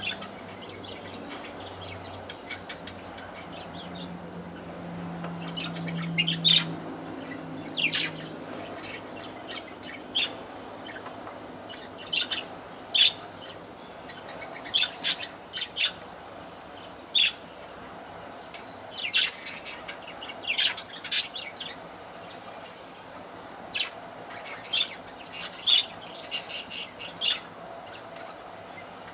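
Budgerigars chirping in short, sharp calls, coming irregularly throughout with a few louder ones among them.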